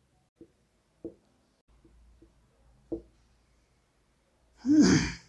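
Quiet, with four faint soft taps in the first three seconds, then a man's voice briefly near the end.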